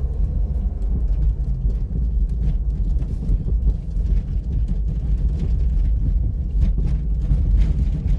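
Steady low rumble of a vehicle driving slowly over a rough road, with scattered faint clicks and crunches from the road surface.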